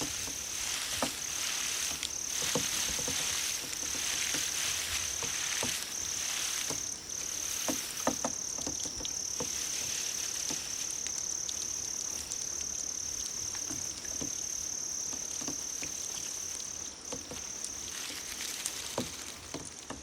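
Grass insects such as crickets trilling: one continuous high, thin tone that breaks off briefly every second or two. Scattered small ticks and patters of water sit underneath.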